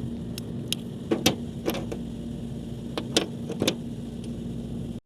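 Scattered short clicks and taps of copper refrigerant pipe and a brass flare nut being handled, over a steady low hum with a constant tone.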